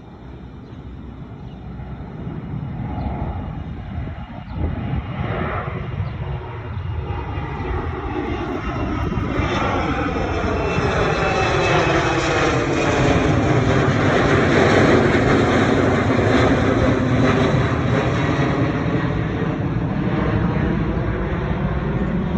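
Jet airliner taking off: the engine noise swells over the first ten seconds or so to a loud peak past the middle, with a sweeping whoosh as the aircraft passes, easing only slightly near the end.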